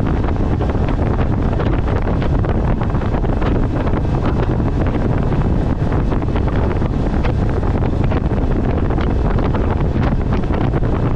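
Loud, steady wind rushing over the microphone of a boat under way on open water.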